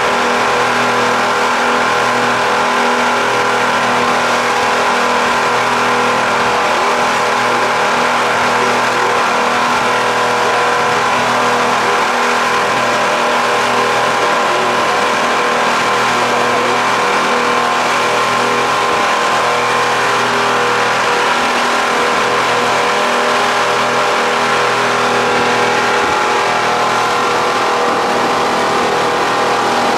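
Motorboat engine running steadily at cruising speed, a constant drone over the rush of water and wind past the hull.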